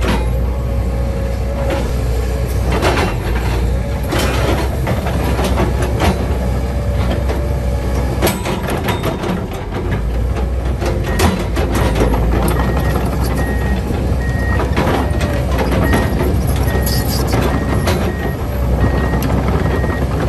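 Komatsu HB215LC-1 hybrid excavator's diesel engine running with a steady low rumble, its steel tracks and undercarriage clanking and knocking as the machine moves. About halfway through, its travel alarm starts beeping steadily.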